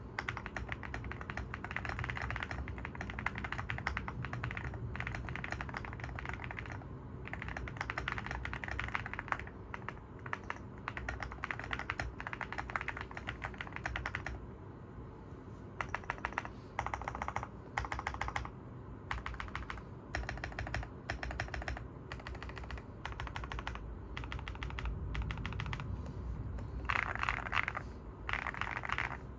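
Typing on an Evoworks EVO80 mechanical keyboard with a PP plate and Oat linear switches: fast, continuous keystroke clacks, thinning briefly about halfway through and then picking up again, with a louder flurry near the end.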